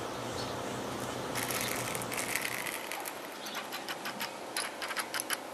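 Hooked tambaqui thrashing at the surface close to the bank. A burst of splashing starts about a second and a half in, then a run of irregular sharp splashes follows, loudest near the end.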